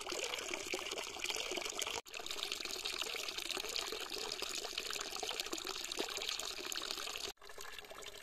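Running water, a steady trickling splash. It breaks off abruptly twice, and is quieter after the second break.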